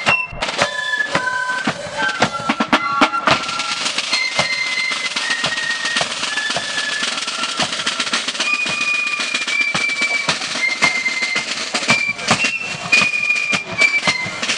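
A military corps of drums playing a march: flutes carry a high melody over a rapid beat of snare drums and a bass drum.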